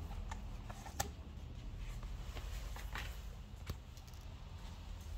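A few light, sharp clicks and taps from the iPad and its new screen being handled on a workbench, over a low steady hum.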